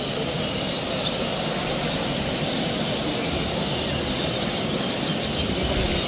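Steady din of a large bird show hall: many caged finches and canaries chirping and singing at once, blended into a continuous wash of sound.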